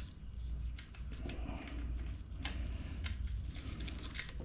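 Light metallic clicks and taps of nuts being threaded by hand onto the bar studs of a chainsaw's side cover, over a steady low hum.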